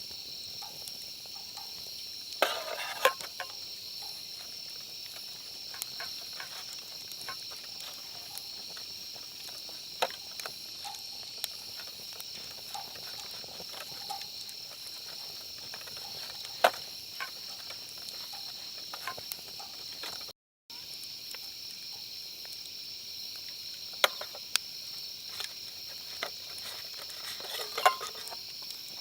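Steady high-pitched chorus of insects, with scattered light clicks and knocks and a couple of brief clusters of clinks near the start and near the end. The sound drops out briefly about two-thirds of the way through.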